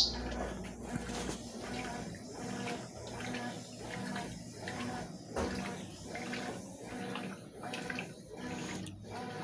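Consul CWS 12 top-loading washing machine agitating a load, water sloshing back and forth in a steady rhythm about every 0.7 s. A short sharp clack at the very start.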